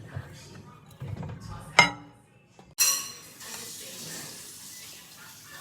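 A spoon stirring batter in a mug, scraping and clinking against the side, with one sharp clink just before the middle. About three seconds in there is a sudden ringing hit, then a steady hiss.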